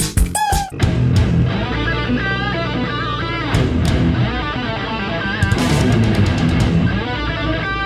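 Background music led by guitar, a full band track that takes over under a second in from a choppier, beat-driven passage.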